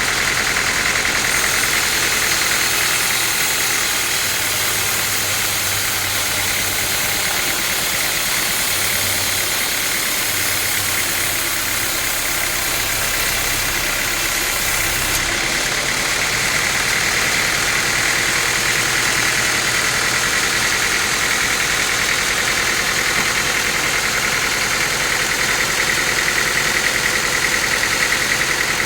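Sawmill machinery running steadily: an engine hum under a continuous high whine, with the sound shifting about halfway through.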